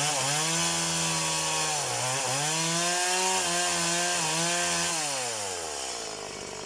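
Stihl MS180 two-stroke chainsaw running at full throttle, cutting wood. Its engine note sags briefly a few times under load, then winds down in pitch near the end as the throttle is released.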